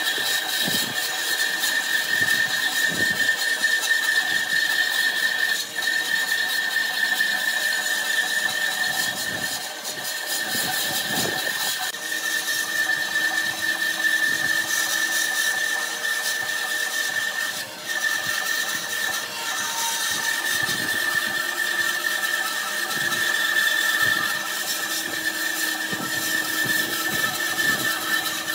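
Bandsaw cutting a curve through a thick block of wood, a steady high-pitched whine over the sawing noise, briefly dipping about six and about eighteen seconds in.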